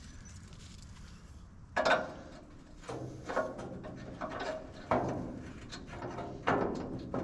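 A series of about six irregular knocks and clunks, with a low hum at times between them.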